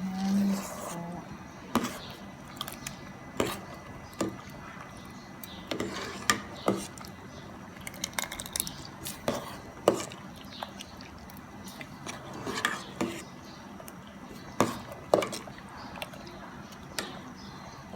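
Spoon stirring a thick pot of glutinous rice and mung beans in coconut milk, knocking and scraping against the cooking pot in irregular sharp clinks, one every second or so.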